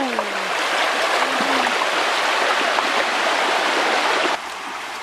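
Fast muddy stream water rushing steadily around a wader's legs, which drops off abruptly to a much quieter background near the end. A brief low call sounds about a second and a half in.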